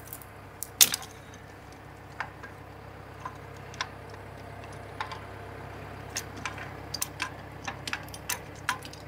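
Scattered light metallic clicks and taps of hand pliers working on the steel fittings of a skidder's blade frame, coming more often in the second half, over a steady low hum.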